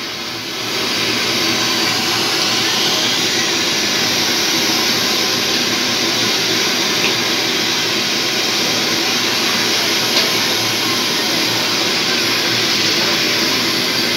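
Jalebis deep-frying in a wide wok of hot oil: a loud, steady sizzling hiss, with a couple of faint clicks.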